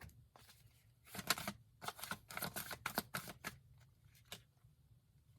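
A deck of tarot cards being shuffled by hand: a quick run of crisp card slaps and flicks for a couple of seconds, then a few single light clicks as the cards settle.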